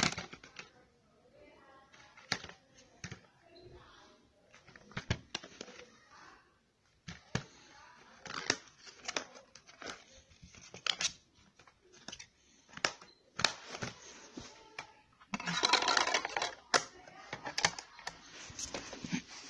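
A plastic DVD case being handled and opened and the disc taken out: a string of irregular clicks, snaps and knocks, with a louder rustling burst lasting about a second and a half about three-quarters of the way through.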